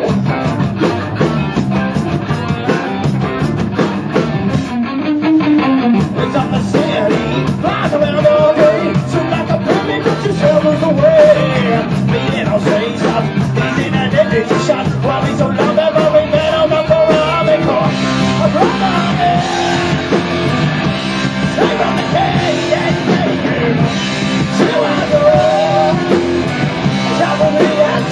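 A live band playing rock-funk on electric guitars, bass and drums, with a steady beat and a lead line of held and bending notes over it.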